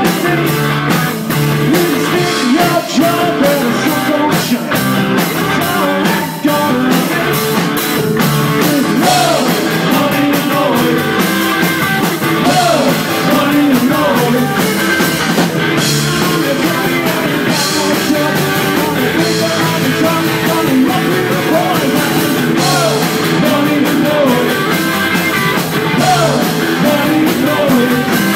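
Live rock and roll band playing: electric guitar and drum kit with a singer's voice over them.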